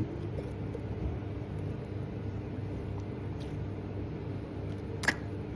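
Steady low background hum and room noise, with one short sharp click about five seconds in.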